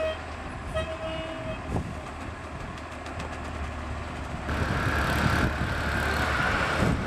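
A heavy engine running steadily, with two short beeping tones in the first second and a half, then growing louder about four and a half seconds in.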